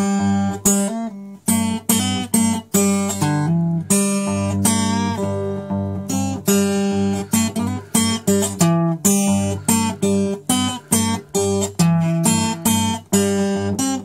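Acoustic guitar strummed in a steady rhythm, about two to three chord strokes a second, each chord ringing on between strokes.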